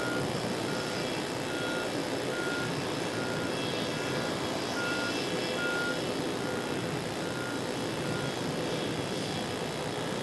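Steady airport apron noise of jet aircraft engines running, over the constant hum of a faulty camcorder microphone. A short high beep repeats about every 0.8 seconds and stops near the end.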